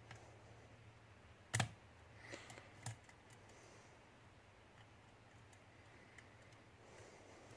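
Faint metallic clicks of a lock pick working the pins inside a challenge lock: one sharp click about one and a half seconds in, then a few lighter clicks just after, over a low steady hum.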